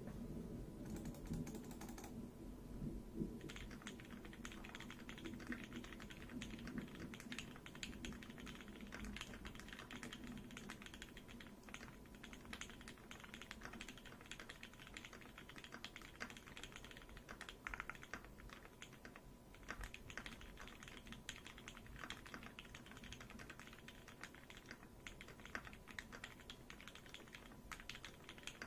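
Continuous fast typing on a TGR x Singa Unikorn custom mechanical keyboard with lubed C3 Tangerine linear switches on a brass plate, picked up by a phone microphone: a dense stream of key clacks with a couple of brief pauses.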